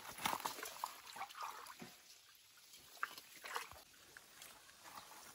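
Hands sloshing and groping in a shallow muddy stream pool: scattered small, quiet splashes and drips.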